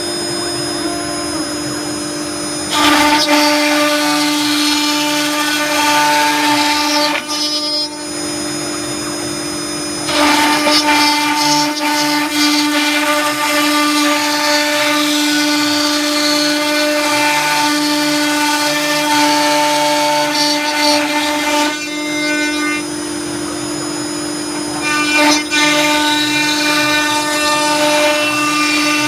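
A greenBull CNC router cutting parts from a sheet, its spindle running with a steady whine throughout. In three long spells the cutting grows louder and harsher, separated by two quieter stretches where the bit moves through lighter passes.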